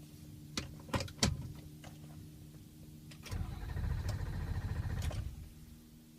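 Ford 6.0L Power Stroke V8 turbo-diesel idling with a steady low hum, broken by a louder, rattly, pulsing stretch of about two seconds past the middle, the rough idle and stumble of an engine that is running poorly. Three sharp clicks come in the first second and a half.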